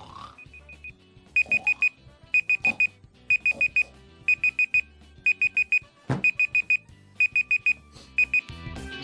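Electronic alarm clock beeping in quick groups of four, about once a second, getting louder after the first second, over faint background music. A falling swoop sounds about six seconds in.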